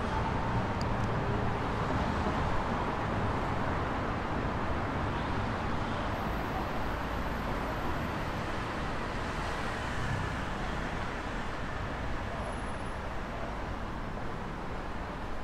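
Road traffic: the steady noise of cars going by on a street, easing slightly toward the end.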